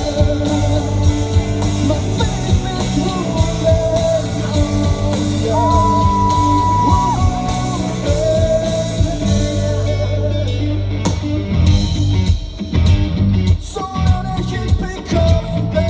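Live rock band through a concert PA: electric guitars, bass and drums with a sung lead vocal, including long held notes. About ten seconds in the band drops to a sparser passage.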